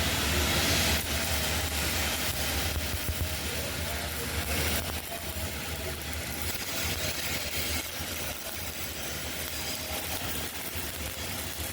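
Arc welding a vertical 3G plate, run uphill: a steady hiss from the arc, over a steady low hum.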